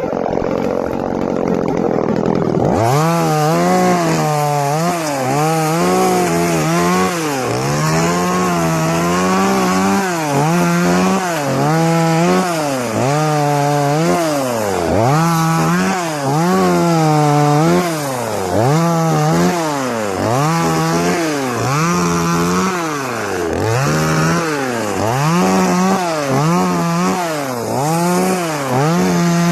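TimberPro top-handle two-stroke chainsaw revving up and dropping back again and again, about once every two seconds, as it lops branches off standing trees. The rev cycles begin about three seconds in.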